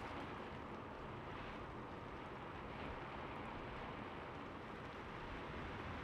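Steady rain falling on a roof: an even, unbroken hiss of many drops.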